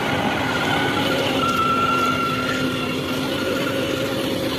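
A child's battery-powered ride-on toy jeep driving along, its electric motors and gearbox giving a steady whine over a background hum of noise.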